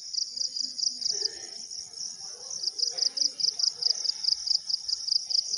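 Insects chirping in a steady, high, pulsing trill of about seven pulses a second, with a brief break near the middle.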